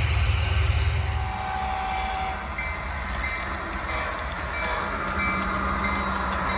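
Model diesel locomotive running along the layout, its sound playing a low diesel engine rumble, with a short high ding repeating at a steady beat from about two and a half seconds in.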